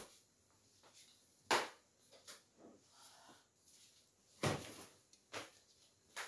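Bedding handled while a bed is made: pillows and sheet being moved, with a few short, sharp thumps, two of them louder, and quieter rustling in between.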